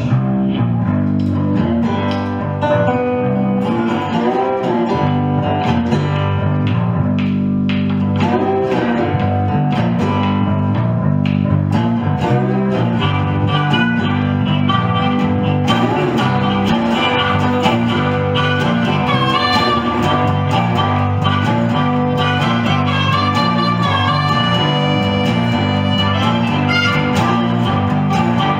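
Blues band playing: a resonator guitar and a bass guitar hold a repeating riff while a harmonica plays bent notes over it.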